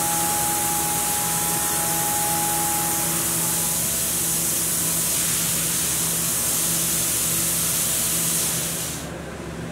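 Haas UMC-750 CNC mill cutting a slender toothpick blank with a small end mill: a steady hiss of coolant spray over a steady spindle hum. Near the end the hiss stops abruptly, leaving a quieter machine hum.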